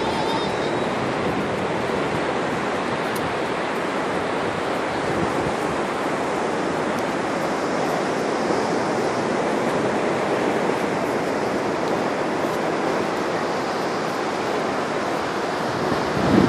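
Pacific surf washing steadily onto a sandy beach: an even, unbroken rush of noise.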